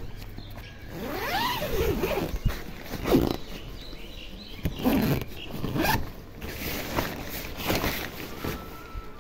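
Tent door zipper being pulled in several separate strokes, with the nylon tent fabric rustling as the flap is pushed aside.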